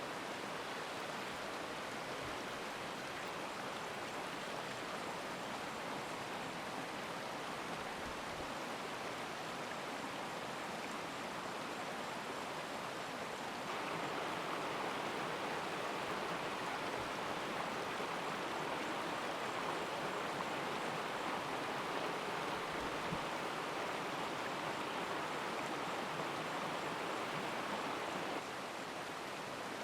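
Steady rushing of flowing stream water. About halfway through it abruptly gets louder and brighter, then drops back just as abruptly near the end.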